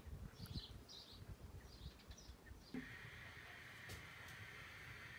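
Near silence: faint short high chirps in the first half, then a faint steady hiss from about halfway through.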